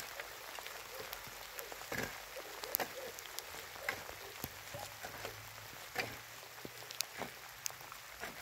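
A shovel digging into stony soil: irregular scrapes and knocks about a second apart as the blade bites and loose earth is tossed aside, over a steady soft hiss.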